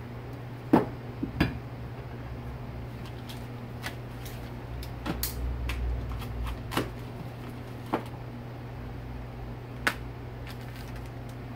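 Scattered clicks and knocks of small metal parts and hand tools being handled on a workbench, the loudest about a second in, over a steady low hum.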